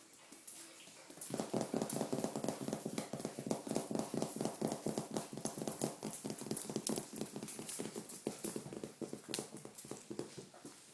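Several Doberman pinscher puppies' paws pattering on a hard floor as they follow along, a fast uneven run of taps, several a second, starting about a second in.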